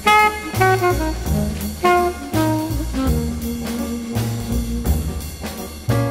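Jazz with horns and a bass line, played back from cassette on a Pioneer CT-939 three-head deck and taken straight from its line output. Short horn notes at first, then a held low note for about two seconds from the middle of the stretch.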